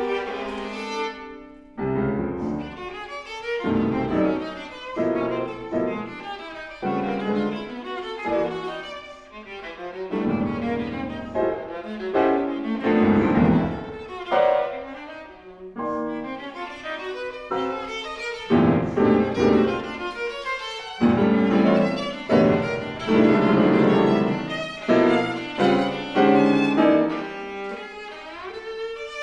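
Viola playing a classical piece in phrases that swell and ease off, with piano accompaniment.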